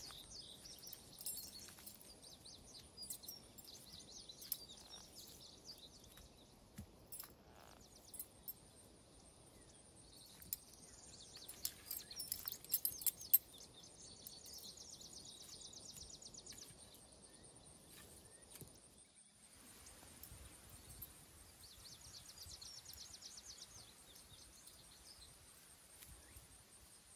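Faint woodland ambience with birds singing: high, rapidly repeated trills in several bursts of a few seconds each, over a steady faint high whine, with scattered small sharp clicks.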